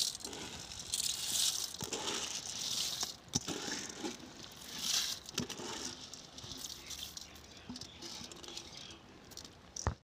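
Dry rice grains poured into a kazan over sliced carrots, coming in several short pattering, hissing pours with scattered light clicks, heaviest in the first half.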